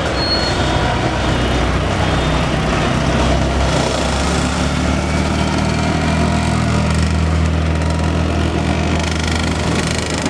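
Procession of vintage Vespa scooters and small classic Fiat cars driving slowly past, their small engines running at low revs. The engine hum grows louder from about four seconds in as the scooters and cars pass close.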